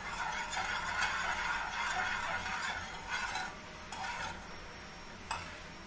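A spoon stirring in a metal saucepan on the stove, scraping and clinking against the pan for about three and a half seconds. A single sharp clink comes near the end.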